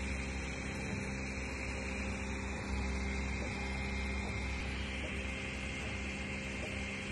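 Prusa 3D printer running a print: a steady whirring hum from its fans and stepper motors as the print head moves over the bed.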